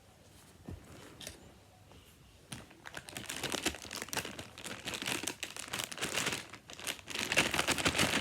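Packaging wrap crinkling and crackling as it is handled and pulled open. It starts about two and a half seconds in and gets louder near the end.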